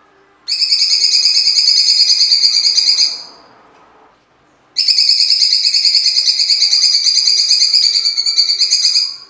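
Cucak cungkok, a leafbird, singing its harsh rapid-fire song in two long bursts of fast repeated notes: the first about three seconds, the second about four and a half seconds, with a pause of about a second and a half between.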